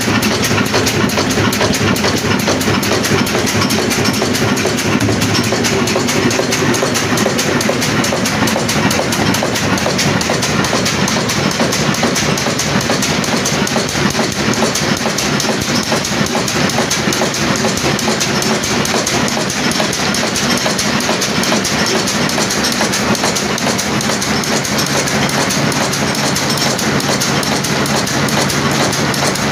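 Old Ruston Hornsby-pattern desi diesel engine running steadily under load, turning a big flywheel and driving a flour mill by a flat belt, with a fast, even clatter.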